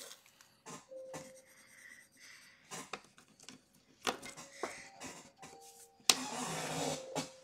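Graphite pencil scratching and tapping on drawing paper, and a hand rubbing across the sheet, with a louder rush of noise about six seconds in that lasts about a second.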